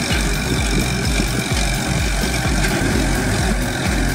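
Farm tractor engine running steadily while pulling a disc plough through a dry field.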